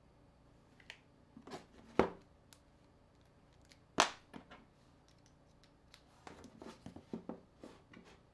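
Clicks and knocks of an ASUS ZenFone smartphone's plastic parts and a pry tool being handled and set down on a table during a teardown, two sharp knocks about two and four seconds in standing out, then a quick run of small clicks near the end.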